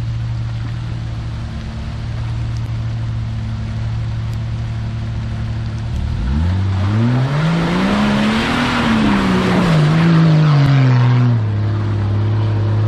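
Jeep Cherokee XJ's 4.0 straight-six idling steadily, then revved hard about six seconds in as it pushes through deep mud. The pitch climbs, holds, and falls back to idle near the end, with a rush of tyres churning mud while the revs are high.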